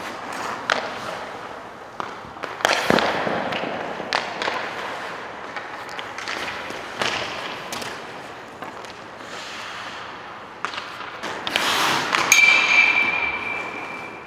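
Ice hockey practice sounds: several sharp puck and stick impacts, the loudest about three seconds in and again near the end, with skate blades scraping the ice between them. Near the end one impact leaves a ringing metallic tone.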